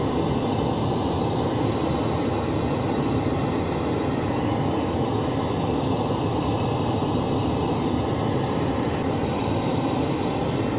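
Pink noise played through a second-generation Amazon Echo smart speaker as a test signal for measuring its frequency response: a steady, even rushing hiss that cuts off suddenly at the end.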